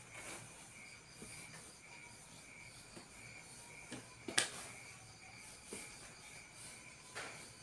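Crickets chirping steadily in the background, with faint rubbing of hands massaging a leg and one sharp click about four and a half seconds in.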